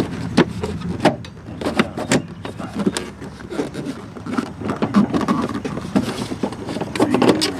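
Plastic cover panel over a car's cabin air filter being worked into place by hand: irregular clicks, knocks and rattles of plastic against plastic and the car's body.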